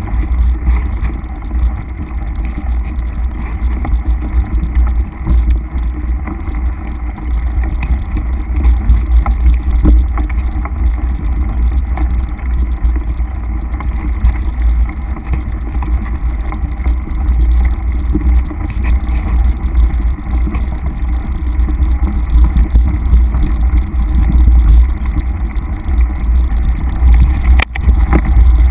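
Wind buffeting the microphone of a handlebar-mounted camera on a mountain bike riding a dirt singletrack: a steady deep rumble with small clicks and rattles from the bike over the rough trail. A sharp knock near the end.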